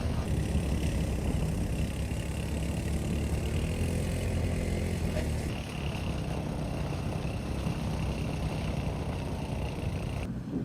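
Low, steady rumble of vehicle engines running, with a slight change in character about halfway through.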